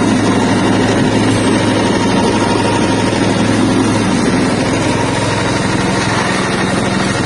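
Soybean skin-separating machine running steadily, its motor giving a constant hum over a broad mechanical noise.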